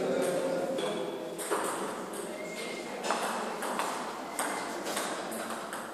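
Table tennis balls clicking off paddles and the table: a string of sharp, irregularly spaced ticks in a hall.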